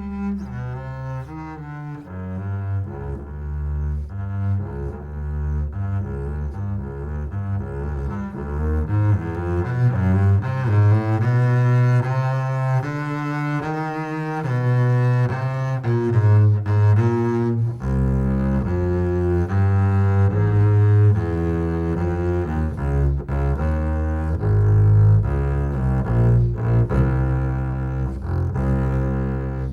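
Double bass played with the bow: a long run of held low notes changing pitch, climbing higher in the middle and dropping back to the lowest notes in the second half.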